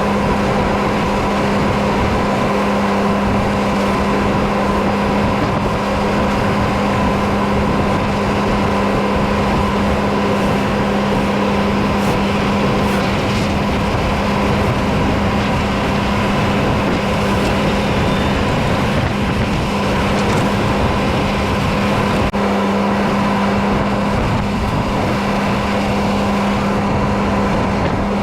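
Tractor diesel engine running at a steady working speed, an even drone that holds unchanged throughout.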